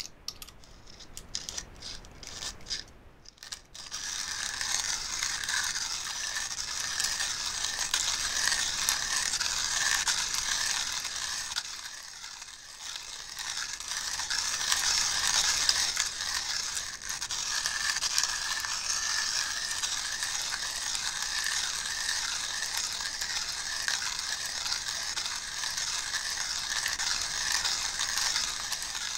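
Coffee grinder grinding beans: a few scattered clicks, then from about four seconds in a steady, gritty grinding with a fast rattling texture that eases briefly partway through.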